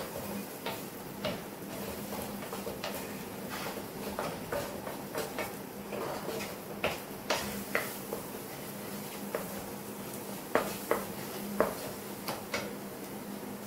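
Spatula tapping and scraping against a frying pan as eggs are scrambled over high heat: irregular sharp clicks over a steady low hiss.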